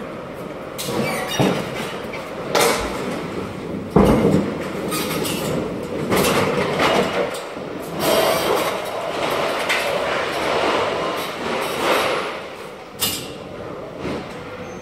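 Manual pallet jack loaded with stacks of plastic crates being pushed over a steel dock plate and into a trailer: the wheels rumble and rattle and the crates clatter. There is a loud thump about four seconds in and a sharp clack near the end.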